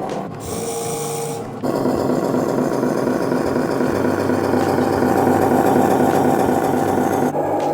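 Small electric drive motor and gearbox of a 1/18-scale RC Scania 770S truck (Huina 1501) whirring steadily. It grows louder and fuller about a second and a half in.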